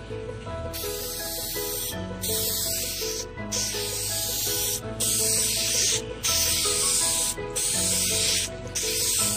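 Aerosol can of Dupli-Color Vinyl & Fabric spray paint hissing in seven bursts of about a second each with short pauses between, as a coat of paint is laid on. Background music plays underneath.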